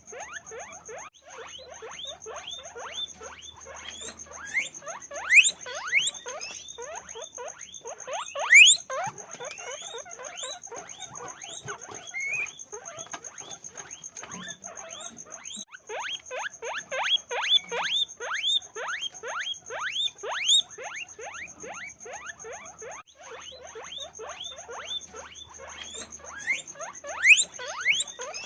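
Many guinea pigs squeaking at once: a dense, continuous stream of short squeaks, each falling in pitch, several a second, with a few louder shrill calls now and then.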